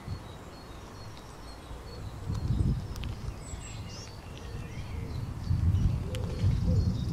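Outdoor garden ambience: faint, short chirps of small birds over a low rumble that swells twice, with a few faint clicks.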